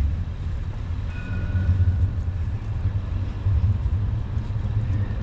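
Low, uneven outdoor rumble of city traffic and wind on the microphone, with a faint brief high tone about a second in.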